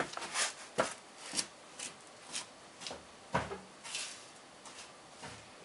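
Light clicks and knocks of small metal parts and hand tools being handled and set in place, about a dozen at irregular spacing.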